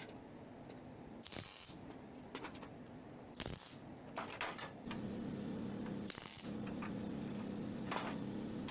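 MIG welder laying short spot welds on thin sheet steel: three brief hisses, each under half a second, about a second in, around three and a half seconds in and about six seconds in. A steady low hum starts about five seconds in.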